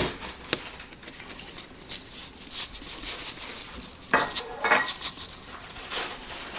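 Dishes and metal utensils clinking and clattering as they are handled, with scattered knocks and a louder run of clatter about four seconds in.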